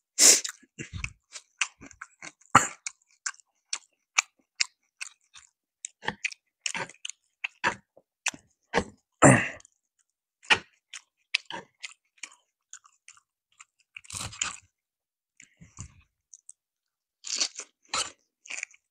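Close-miked mouth sounds of a person chewing and crunching food: irregular short crunches and wet clicks with brief pauses, the loudest about 9 seconds in.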